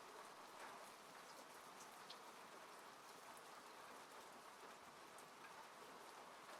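Faint, steady rain falling on a car, heard from inside the car, with scattered single drops ticking on the body or glass.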